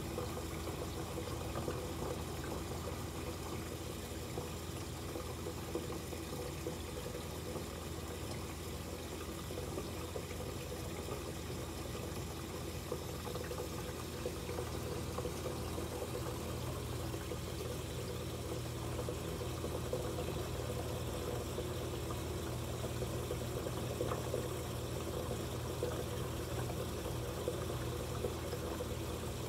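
Steady water flow and low pump hum from a marine aquarium's circulation and filtration, running without change.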